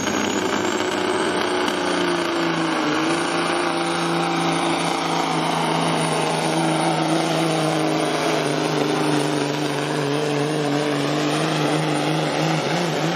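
Pro stock semi truck's diesel engine running flat out under load as it pulls the sled down the track, a steady heavy engine note with a high whine that climbs over the first few seconds and then holds.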